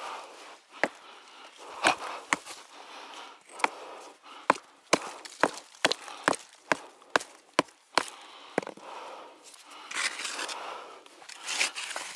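A small yellow-handled pick hammer chipping into stony soil and rock, a run of sharp strikes that quickens to about three a second in the middle. Near the end a trowel scrapes and rakes the loosened dirt.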